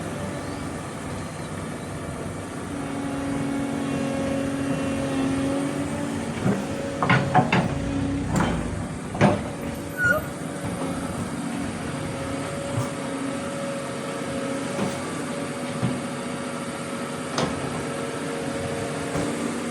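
Doosan DX200A excavator running steadily at work, with a cluster of loud knocks and clanks from about a third to halfway through and a few lighter knocks later.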